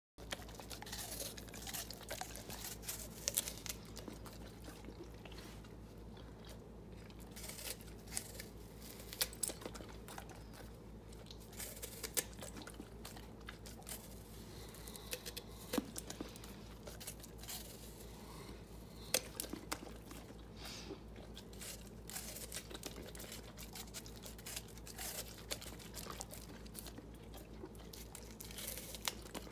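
A golden retriever crunching and chewing a green apple held out by hand, with irregular sharp crunches as it bites off pieces. A steady low hum runs underneath.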